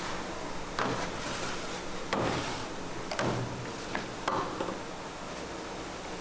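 Kitchen utensils knocking and scraping, about five strokes in the first four and a half seconds, over a steady low hum.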